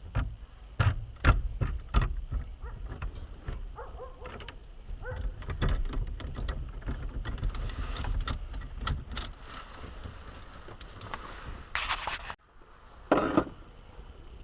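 Hand tools and small metal parts clicking, knocking and clattering in an irregular run while a van's steering column is being taken apart. Near the end the sound drops off abruptly, followed by one more short burst of clatter.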